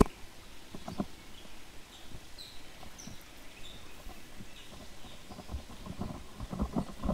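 Outdoor background with scattered short bird chirps, broken by a sharp knock at the start and another about a second in, and a run of small knocks and rustles near the end.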